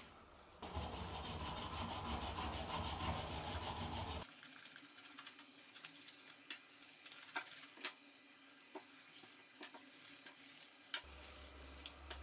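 A cloth rubbed hard along a greasy coaster-hub axle in quick repeated strokes for a few seconds. Then quieter scrubbing of a hub part with a toothbrush, with scattered sharp clicks of small metal parts and one louder click near the end.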